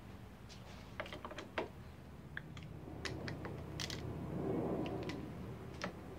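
Light, irregular clicks and taps of the front brake master cylinder and its clamp being handled and seated on a motorcycle handlebar, with a brief rustling scrape about four and a half seconds in.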